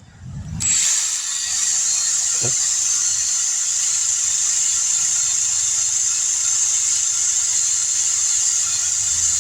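Power drill spinning a wire brush to scrub rust off a brake caliper slide pin: a steady high hiss that starts about half a second in, with a single knock a couple of seconds later.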